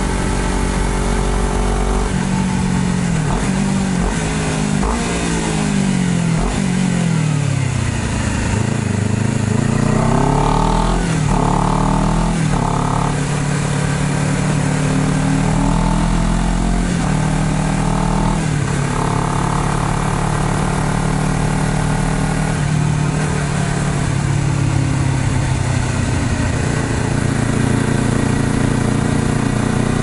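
Honda CBR250RR motorcycle engine heard from the rider's seat while riding, its pitch climbing and dropping with throttle and gear changes over the first dozen seconds, falling low about seven seconds in before pulling up again, then settling into a steadier cruise with a few shifts. Wind rushes over the microphone throughout.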